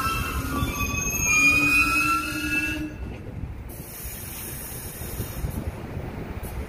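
R62A subway train moving slowly along an elevated track. A high metallic squeal of several tones rises slightly in pitch and cuts off sharply about three seconds in, leaving a lower rumble of the train.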